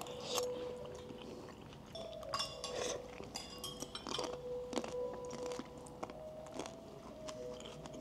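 Close-up chewing and biting of food picked up by clip-on microphones, with scattered crunches and small clicks of utensils.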